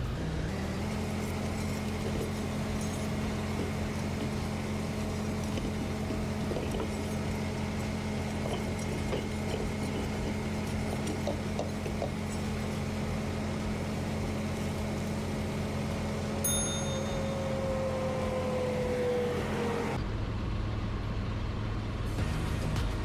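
A vehicle engine running steadily, with a pitch that slides slowly down near the end and a single click about two-thirds of the way through.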